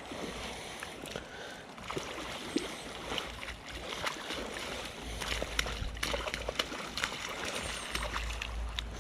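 Water splashing in the shallows as a hooked salmon is beached on a gravel river bank, with scattered sharp clicks. A low rumble joins about five seconds in.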